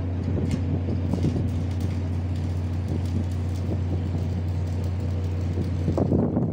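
Steady low drone of a vessel's diesel engine running, with faint clatter above it.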